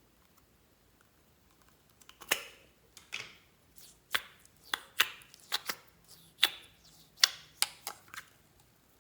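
Slime being squeezed and worked by hand, giving about a dozen sharp, irregular clicking pops as trapped air bursts, starting about two seconds in.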